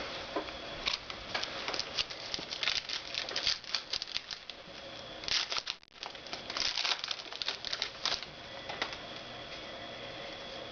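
Rustling and crinkling of trading cards and their packaging being handled: a quick run of small flicks and crackles that stops about eight seconds in, over a faint steady hum.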